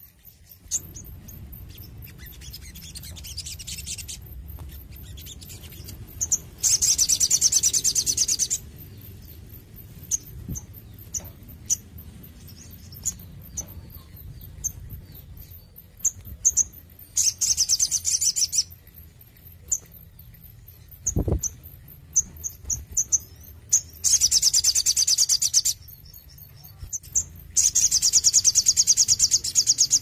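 Male olive-backed sunbird singing: four loud bursts of fast, high trilling, each about two seconds long, with short sharp chips scattered between them. A single dull thump a little past the middle.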